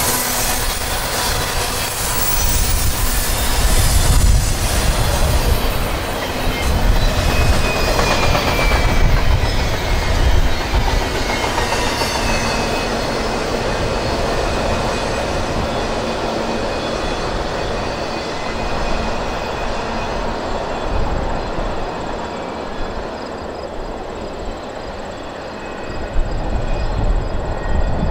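CSX freight train rolling past, its cars' steel wheels running steadily over the rails, with a faint thin wheel squeal about ten to thirteen seconds in.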